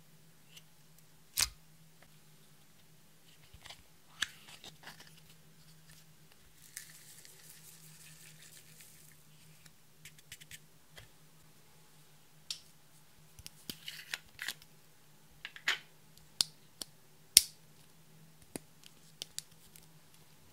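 Scattered sharp clicks and taps of plastic makeup containers and a glitter bottle against a glass baking dish, a few of them louder, with a soft hiss of glitter sprinkled into the dish from about six and a half to nine seconds in.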